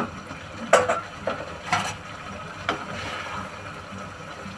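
A spatula knocking and scraping against a kadai while stirring thick egg curry, a few separate strokes in the first three seconds, then only a faint steady hiss.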